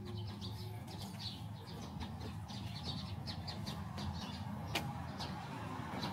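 Small birds chirping in quick, repeated short high notes over a steady low rumble of city background, with one sharp click about three-quarters of the way through.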